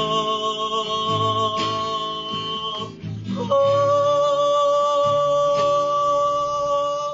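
A singer holds two long, steady notes over strummed guitar chords, the closing notes of a song. The singing and guitar stop suddenly right at the end.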